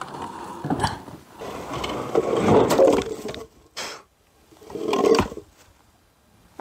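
Large rocks being handled on a small truck's cargo bed and lowered onto dirt: rough scraping of stone, loudest about two to three seconds in and again about five seconds in.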